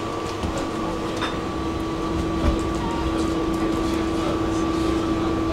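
Tram in motion heard on board: a steady hum with two held tones over a low rumble of wheels on rail, with faint scattered ticks and one short knock about two and a half seconds in.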